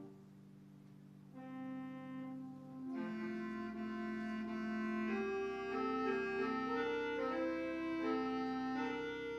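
Church organ playing held chords. The chord is soft for the first second or so, and more notes enter about a second and a half in. About three seconds in, a fuller sound with a low bass begins, moving steadily from chord to chord.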